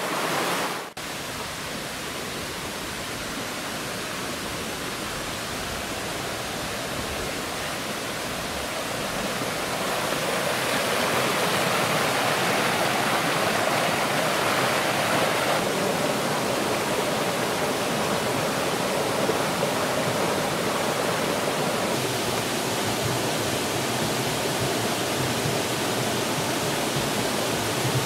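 Steady rush of creek water pouring through rock pools and small falls, running high after heavy rain; it grows louder about ten seconds in.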